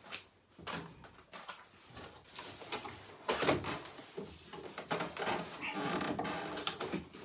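Cardboard packaging being handled: rustling and scraping with a few knocks as the box flaps are pushed back from the top of the boiler, busiest from about three seconds in.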